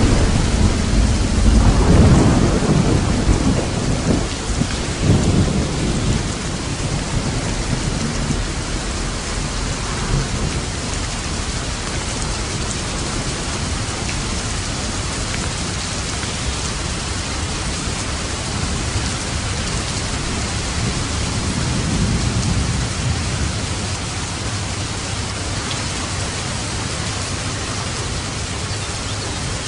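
Steady heavy rain hissing, with thunder rumbling low through the first several seconds and a softer roll of thunder about two-thirds of the way in.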